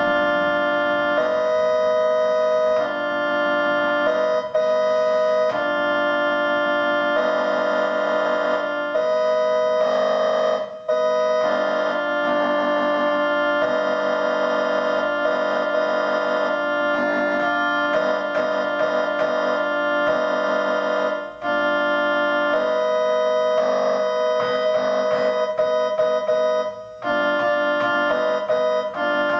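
Electronic keyboard playing held, organ-like chords in on-off blocks of one to two seconds. It imitates the rhythmic honking of celebrating car horns.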